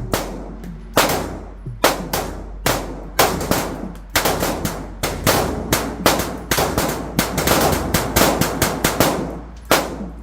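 A PSA Dagger 9mm pistol fired in a fast string of shots, about two to three a second, each with a short ringing tail. The pistol cycles through the string without a malfunction.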